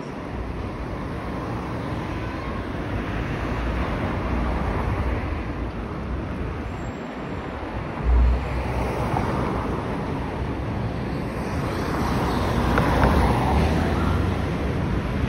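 Street ambience of road traffic, overlaid by wind buffeting the microphone as a low rumble, with one loud low gust about eight seconds in.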